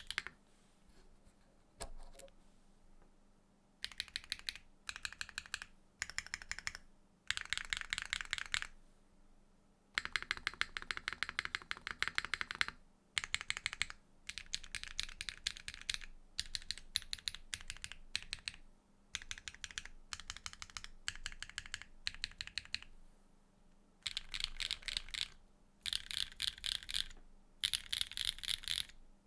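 Typing on a Neo65 mechanical keyboard with a carbon fiber plate and HMX Citrus Silver V2 switches. Rapid keystrokes come in bursts of one to three seconds, separated by short pauses.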